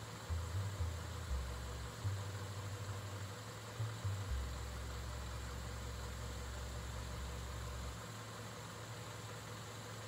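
Toyota RAV4 idling: a low, steady rumble, with a few soft bumps in the first four seconds.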